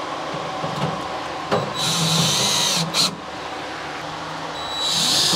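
Right-angle drill driving pan-head screws into wooden framing: two runs of the motor's whine, about a second each, one about two seconds in and one near the end, with a brief burst just after the first.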